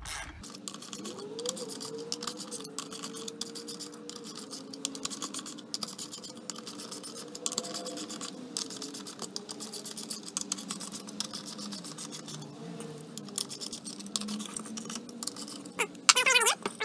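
Hand ratchet clicking in quick runs while the bolts of a Polaris snowmobile primary clutch cover are snugged down a little at a time by hand, so the cover seats straight on the shaft without binding.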